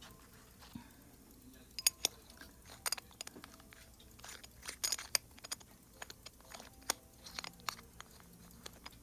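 Light, irregular clicks and small scrapes of fingers handling a pocket watch's polished silverode case and turning its screw-down back.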